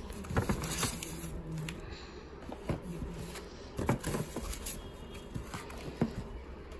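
Small plastic takeaway tubs being taken out of a paper carrier bag and set down on a table: paper rustling with a scattering of light knocks and clicks.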